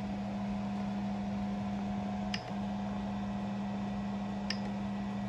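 A Creality Ender 3 Pro 3D printer humming steadily, with a brief dip about halfway through. Two faint clicks, one about two seconds in and one near the end.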